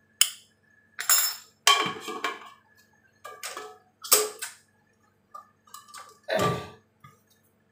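Spice jars and their lids clinking and knocking as they are handled and set down on a stone counter: about eight sharp clicks and knocks, each ringing briefly, with a heavier thump about six and a half seconds in.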